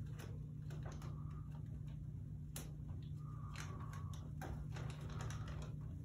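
Irregular light clicks and taps, scattered and uneven, the sharpest about two and a half seconds in and several close together near the end, over a steady low hum.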